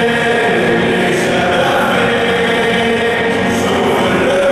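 Large crowd of sports fans singing a chant together, many voices in unison.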